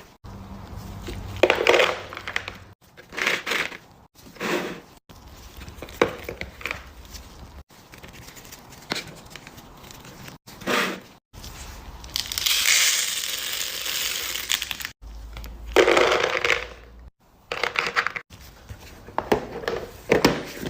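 Candy being crunched: a series of short crunching and crackling sounds, broken by abrupt cuts, with a longer, steadier crackle past the middle.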